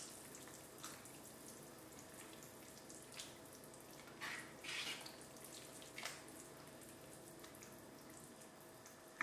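A spoon stirring a pot of thick vegetable soup: the liquid sloshes in a few short, faint swishes over a steady low hum.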